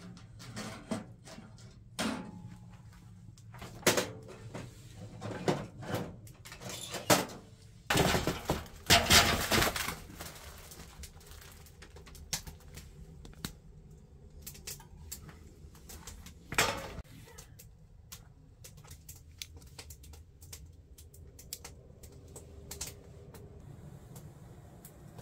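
Metal pot knocking and clattering as it is handled and set on top of a wood stove, a string of sharp knocks with a harsher scraping noise lasting about two seconds partway through and another clatter later.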